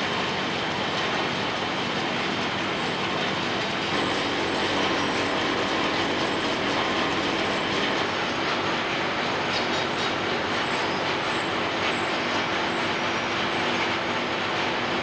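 Steady, continuous mechanical running noise: a dense clatter over a low hum, holding at an even level throughout.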